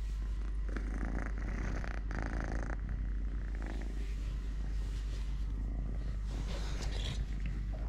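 A kitten purring steadily.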